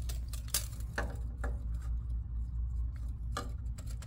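Handling of a tape measure and a black plastic pipe fitting: a few scattered clicks and taps as the tape is hooked on the fitting held against a wooden stud, over a steady low rumble.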